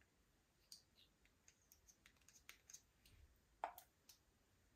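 Faint, scattered sticky clicks and small pops of slime being worked by hand, with one louder pop about three and a half seconds in.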